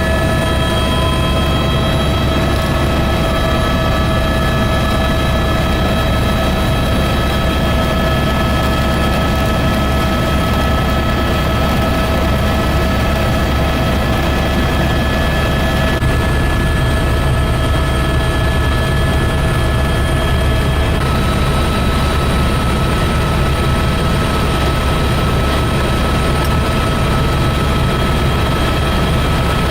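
Helicopter in steady flight: a constant low rotor drone with several steady whining tones from the turbine and gearbox above it.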